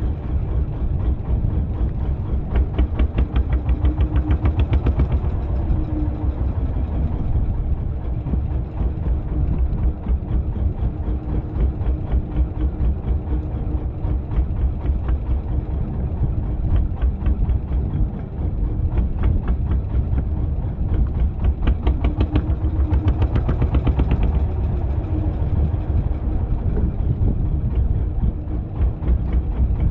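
Engine of a small wooden fishing boat idling, a rapid, even thumping that grows louder for a couple of seconds twice.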